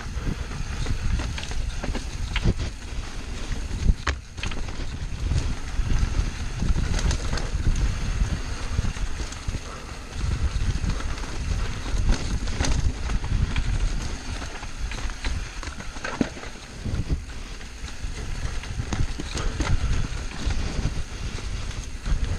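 Mountain bike riding fast down a rough dirt trail: wind buffeting the microphone and tyres rumbling over dirt and rocks, with frequent knocks and rattles from the bike over bumps.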